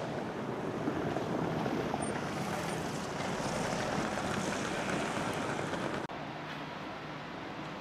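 Vintage tram running, a steady rolling noise. It changes abruptly and gets a little quieter about six seconds in.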